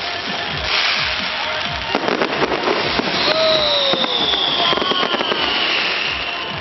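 Fireworks display going off without a break: dense crackling and popping with repeated sharp bangs. A long, slowly falling whistle runs through the second half.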